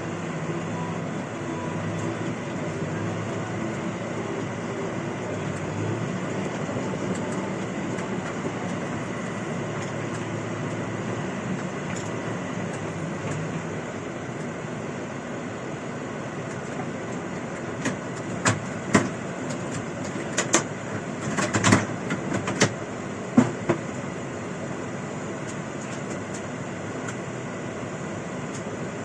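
Farm machinery engine running steadily with a rattling drone. A cluster of sharp knocks and clicks comes about two-thirds of the way through.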